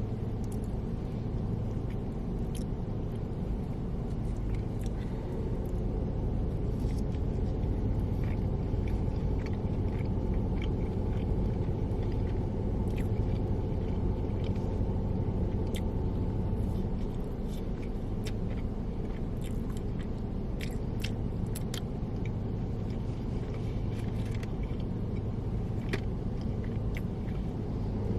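Close-up chewing and biting of crunchy fried food, hot-Cheetos-coated chicken wings and fried cheese bites, heard as scattered short crunches and mouth clicks over a steady low background rumble.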